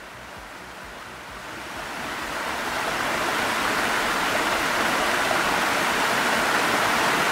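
Tall mountain waterfall: a steady rush of falling water that swells over the first three seconds and then holds.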